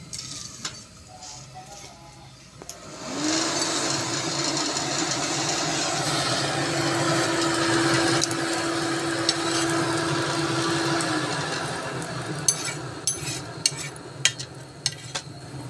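Electric air blower of a charcoal forge switching on about three seconds in: a rising hum that settles to a steady pitch over a rush of air, then winds down and fades toward the end. A few sharp clicks and crackles follow near the end.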